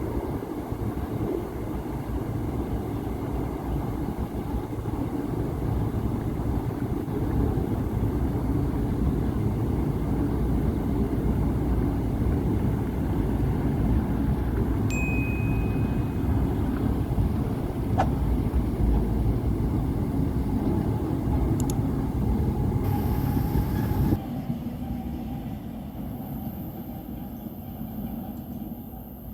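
An empty freight train running past, with a steady rumble and rattle of wheels and wagons on the rails. A short high squeal comes about halfway through. Near the end the noise drops sharply to a quieter rumble.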